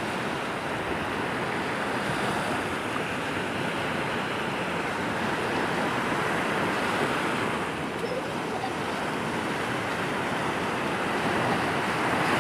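Steady wash of sea surf along the shore, an even hiss of water with no single wave standing out.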